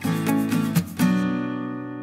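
Background music on acoustic guitar: a few quick strummed notes, then about halfway through a chord left ringing and slowly fading.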